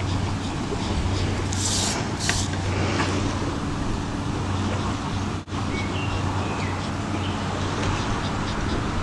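Steady low hum and hiss of background noise, with two brief hissing swishes about two seconds in and a momentary break about halfway through.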